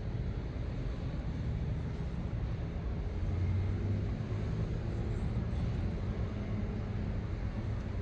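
Low, steady engine rumble, swelling slightly about three to four seconds in.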